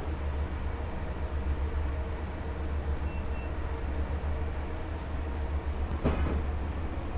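Steady low background rumble with a faint steady hum, and a single short knock about six seconds in.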